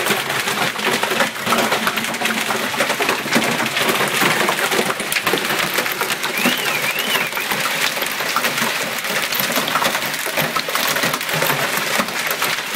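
Heavy hail falling: a dense, steady clatter of hailstones striking the paved ground.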